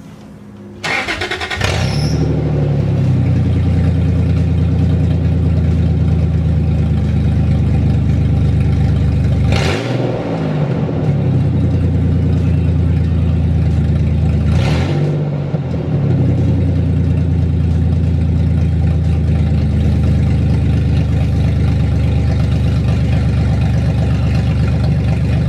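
Truck engine starting about a second in, then idling loudly with no exhaust fitted from the headers down. It is blipped twice, rising and falling in pitch.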